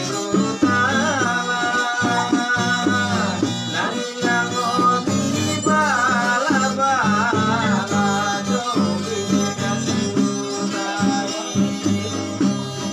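Violin playing a wavering, ornamented folk melody over a steady drum beat.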